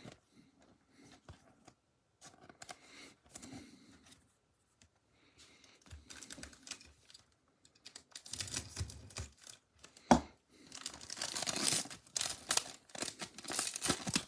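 Bowman Platinum baseball card pack wrapper being torn open and crinkled by gloved hands, after a few seconds of soft card handling. There is a sharp snap about ten seconds in.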